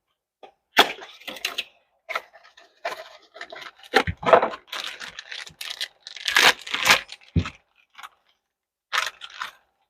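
Parts packaging being handled and torn open: irregular rustling and tearing, with scrapes and light metal clinks.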